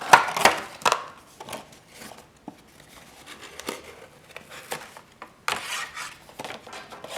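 Cardboard box and packaging being handled and rummaged through. There is a run of sharp clicks and rustles in the first second, scattered light taps after that, and another burst of rustling about five and a half seconds in.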